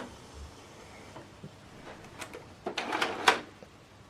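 Plastic clicks and clatter from an HP DeskJet 3755 printer as its cartridge access door is opened and the cartridges are handled. There are a few separate clicks, then a denser burst about three seconds in.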